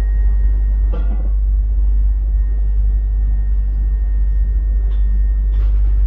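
Steady low rumble with a faint, steady high-pitched whine over it, and a light knock about a second in and another near the end.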